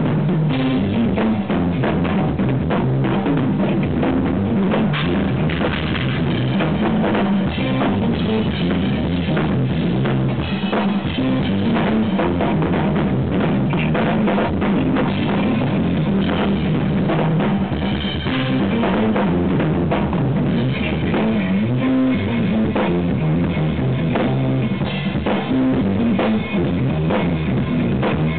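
Live instrumental jazz-rock fusion band playing, drum kit loudest with electric guitar and bass beneath it. The recording is overdriven and distorted.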